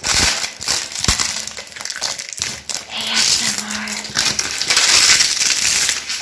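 Debris of flaking paint chips and broken bits crunching and grinding underfoot on a littered floor: a dense crackle full of sharp clinks and snaps.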